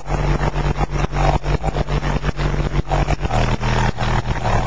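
A Digital Designs 9515 15-inch subwoofer in a ported box plays deep bass notes at very high volume, heard from inside the car, distorted and overloading the microphone. The car's interior and loose objects buzz and rattle under the bass.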